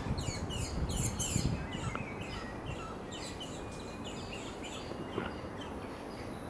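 Dense twittering of many short, high chirps, each falling in pitch, several a second, thickest in the first two seconds and thinning out after.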